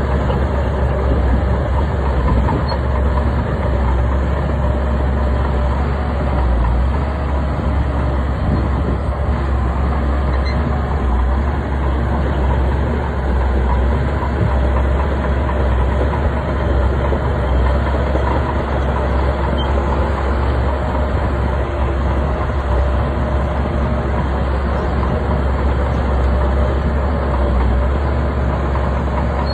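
Heavy bulldozer's diesel engine running steadily with a deep, constant drone.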